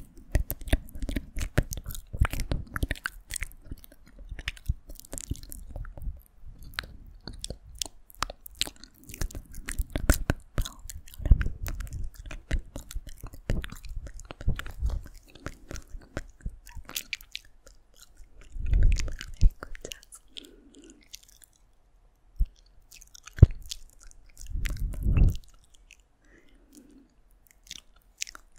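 Close-miked ASMR mouth sounds: rapid wet clicks and smacks, thinning out in the second half, with a few soft low puffs.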